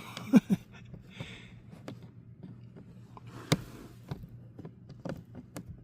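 Scattered small clicks and taps of plastic trim screws and clips being fumbled into place, with one sharper click about three and a half seconds in.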